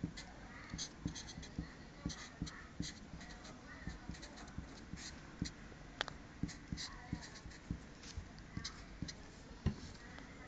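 Pen writing on lined paper: faint, irregular scratching strokes and light taps of the tip, several a second.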